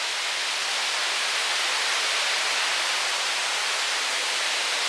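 Steady, even rush of a waterfall's falling water, with no breaks or rises.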